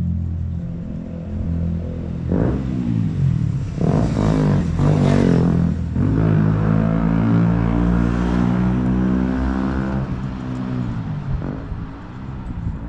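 Road traffic passing close by: vehicle engines and tyres under a steady low engine hum, with the loudest pass about four to six seconds in.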